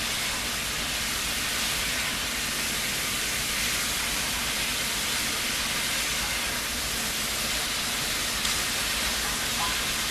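Baby back ribs and onions frying in their own grease in a pot, a steady sizzling hiss.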